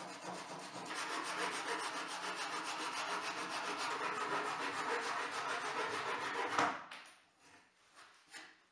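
Handsaw with a thin Japanese-style blade cutting through birch plywood in quick, rasping strokes. The strokes stop about seven seconds in after one louder stroke as the cut finishes, and a faint knock follows near the end.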